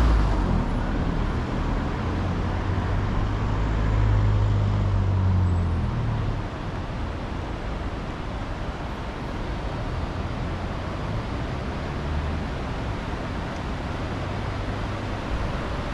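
Road traffic: a passing vehicle's engine hums low, loudest about four to six seconds in, then fades into a steady wash of traffic noise.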